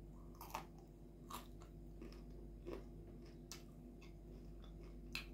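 Faint mouth sounds of chewing a bite of crispy breaded fried chicken, with a few scattered crunches and crackles, over a low steady hum.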